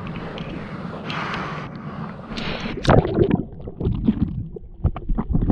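Ocean water rushing, with wind on the microphone. From about three seconds in come choppy, irregular splashes and knocks.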